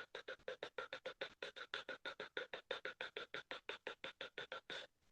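A person making a quick, even run of short clicking 'ta' sounds with the mouth, about seven a second, in the manner of the channelled 'light language' sung in this meditation. The run stops shortly before the end.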